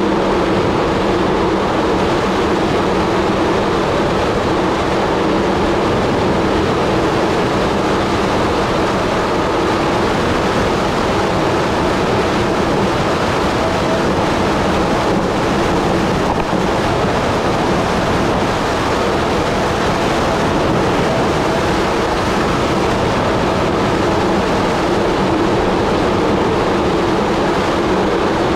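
Steady rush of wind on the microphone with tyre rumble from a bicycle coasting fast down an asphalt road.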